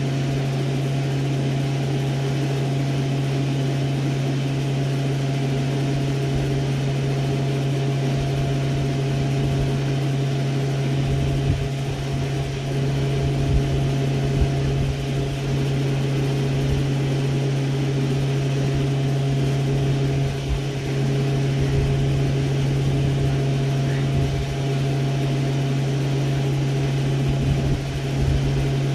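Steady low mechanical hum of machinery running continuously, like an idling engine or motor, with a faint steady higher tone above it. A few dull low thumps come in the second half.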